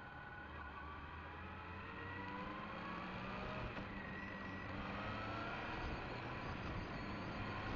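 Motorcycle engine accelerating as the bike pulls away, its pitch rising in a couple of climbs, with wind and road noise growing louder as it picks up speed.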